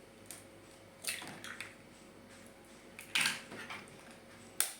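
Eggs being cracked against a bowl and emptied into it: a few short taps and cracks with soft wet plops, and a sharp click near the end.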